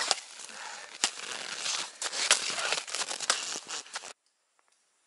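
Snow and ice crunching and scraping, with a few sharp cracks, as a beaver trap is worked out of a hole in lake ice. It cuts off abruptly about four seconds in.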